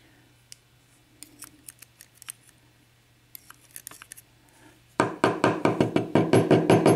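Small metal clicks and scrapes of a tool working in a pin chamber of a Dorma mortice lock cylinder to free a stuck wafer. About five seconds in comes a quick run of loud taps, about seven a second, for some two seconds.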